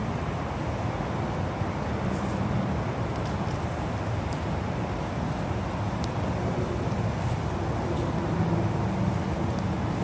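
Steady low rumble of engines running, with a faint hum that wavers slightly in pitch.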